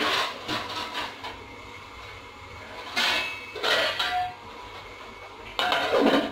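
Metal clinking and clattering in several short bursts as a stainless steel lid is handled, then set down onto a kadai near the end with a clank.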